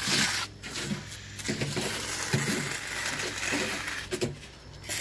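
Steel shovel scraping and scooping wet concrete, in several rough strokes, the first the loudest.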